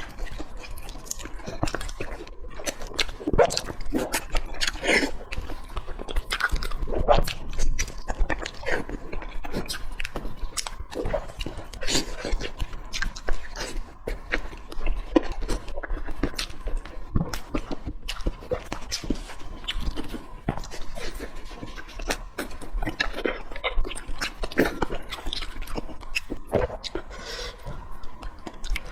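Close-miked eating of braised pork trotters: wet chewing, biting and lip-smacking, a dense run of irregular clicks and smacks.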